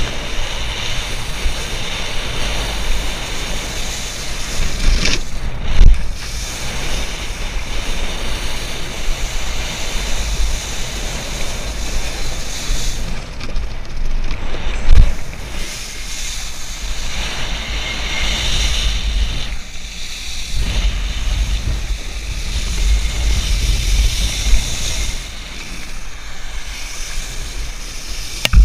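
Wakeboard planing and spraying across lake water, with wind buffeting the microphone into a steady low rumble. Two loud thumps stand out, about 6 s and 15 s in.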